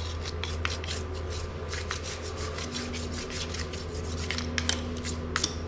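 A small cleaning brush scrubbing the plastic parts of a robot vacuum's underside in quick, repeated strokes, bristles rasping against the plastic.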